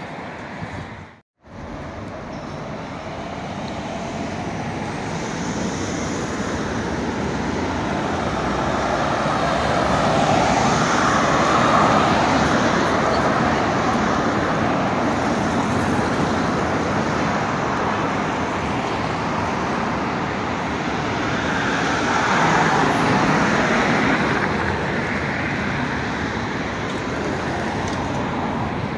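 Road traffic on a wide city avenue: a steady stream of cars driving past, swelling louder as vehicles go by about ten seconds in and again a little over twenty seconds in. The sound cuts out briefly about a second in.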